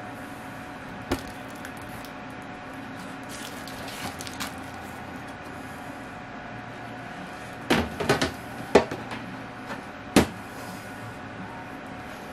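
Plastic lid being set onto a small plastic enclosure and clicked shut: a cluster of clacks about eight seconds in and a sharp click about ten seconds in, with a lone click about a second in. A steady hum runs underneath.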